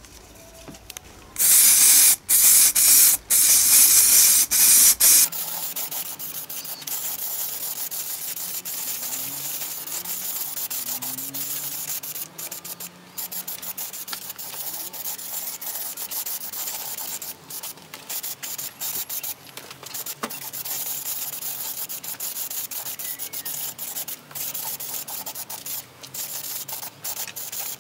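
Aerosol can of acrylic clear-coat lacquer hissing as it sprays a wheel rim. There are several loud bursts in the first few seconds, then a quieter, steadier hiss broken by short pauses between passes.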